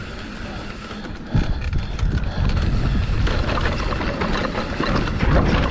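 Mountain bike descending a rough dirt trail: wind buffeting the action-camera microphone and the tyres rumbling over the ground, with scattered clicks and rattles. It gets suddenly louder about a second and a half in.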